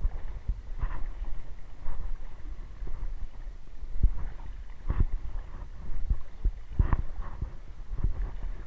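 Footsteps wading through shallow water, an irregular splash and thump about once a second.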